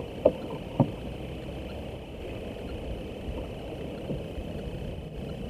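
Small wooden boat sitting still on a river: a steady low wash of water and a faint high drone, with two sharp knocks about half a second apart near the start.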